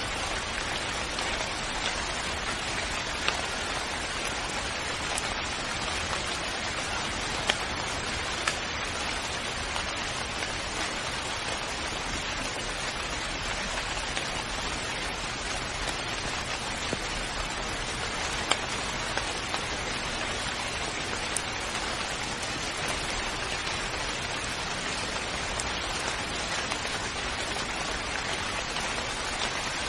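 Steady rain falling, an even hiss of rain with occasional sharper drips standing out.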